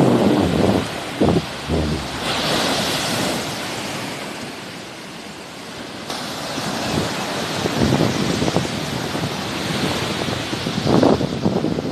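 Sea waves washing onto the shore, the surf swelling about two seconds in and again near the end, easing off in between. Wind buffets the microphone in low rumbling gusts at the start and near the end.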